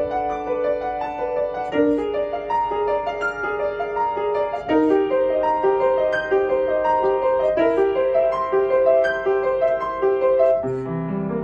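Piano playing a flowing line of notes with an accompaniment, several notes a second; lower bass notes come in near the end.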